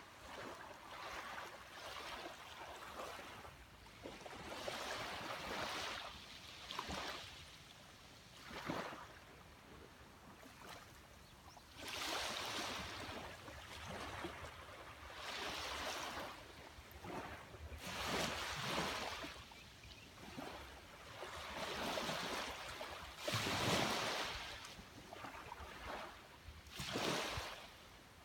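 Sea waves washing onto a beach, the surf swelling and falling away every two to three seconds; the biggest wash comes about three-quarters of the way through.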